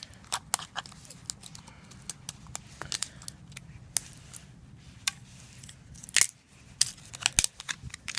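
Irregular clicks, snaps and small cracks of a flip phone's plastic parts being taken apart, with a few louder cracks near the end.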